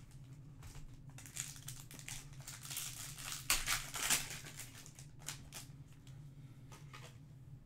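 Trading-card pack wrapper crinkling as it is torn open, loudest about three and a half to four seconds in, followed by a few light clicks of the card stack being handled. A low steady hum runs underneath.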